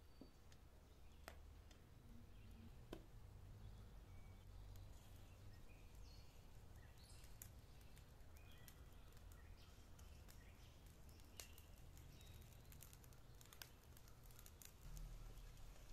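Near silence: faint outdoor ambience with a low rumble, a few soft clicks and occasional short, faint bird chirps.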